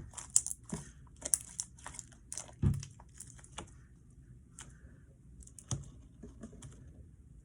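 Quick light clicks and taps of things being handled on a tabletop, with some crinkling. The clicks come thick in the first few seconds, with a heavier knock about two and a half seconds in and another near the end, then thin out.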